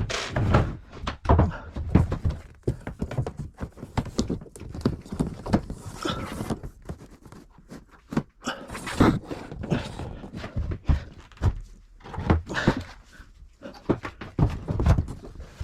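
Irregular knocks and thumps of plywood panels being handled and fixed against a bus ceiling, several bumps a second in clusters, with quieter scraping between them.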